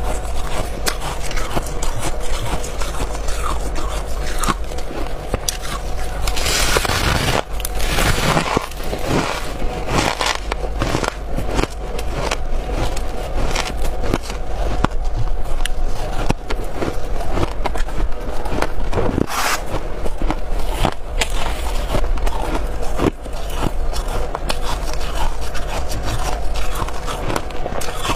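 Close-up crunching of hard freezer frost and ice being bitten and chewed: a rapid, uneven run of sharp crackly crunches, with a longer, denser burst about seven seconds in and another shorter one near twenty seconds.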